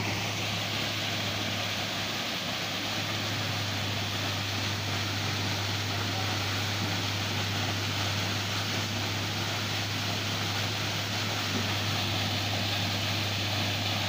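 A waterfall pouring down a rock face: a steady rush of falling and splashing water, with a steady low hum beneath it.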